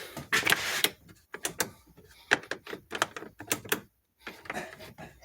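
Irregular light clicks and knocks, a few each second, with short quiet gaps between them.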